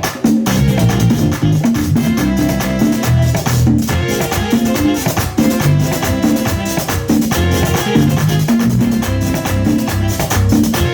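Live merengue band playing an instrumental passage: a fast, steady beat of drums and a shaker over bass and guitar.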